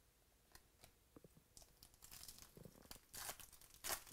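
A trading-card pack wrapper being torn open and crinkled by hand: a few light clicks first, then from about halfway a run of crinkling and sharp rips, the loudest near the end.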